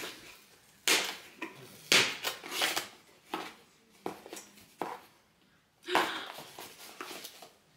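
A small kraft cardboard gift box being opened by hand: a string of short scraping and rustling noises as the lid and flaps are pried loose, the loudest about two seconds in and again about six seconds in.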